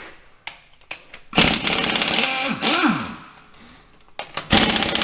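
Impact wrench hammering on bolts of a Farmall 806's PTO housing in two long bursts, a few light clicks first; the first burst ends in a falling whine as the tool winds down.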